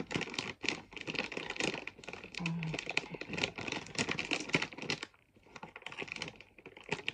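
Plastic crisp packet crinkling and crackling in close-up as fingers pinch and pull at its sealed top, trying to tear it open, with a short lull about five seconds in.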